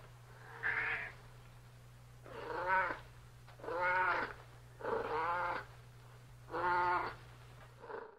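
Domestic cat meowing repeatedly: five meows in a row, each under a second long and rising then falling in pitch.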